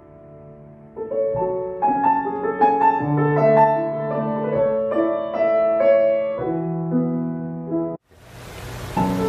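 Background piano music playing slow, sustained chords and melody. After a brief dropout near the end, a steady hiss comes in under the music.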